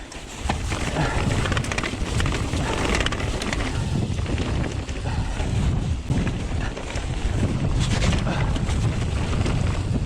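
Strong gusting wind buffeting the microphone, over the rumble and rattle of a mountain bike's tyres running down a rocky trail, with a few sharp knocks as it goes over rocks.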